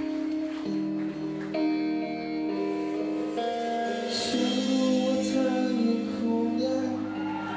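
Live band playing a slow song: guitar and held chords, with singing.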